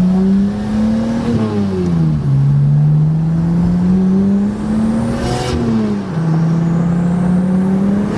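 Turbocharged BMW E30 325is straight-six accelerating hard through the gears. The engine note climbs, then drops at gear changes about one and a half and five and a half seconds in. A short hiss comes at the second shift, and a faint high whine rises near the end.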